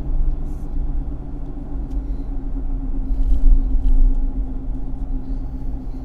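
Car cruising along a highway, heard from inside the cabin: a steady low rumble of road and engine noise with a steady low drone over it.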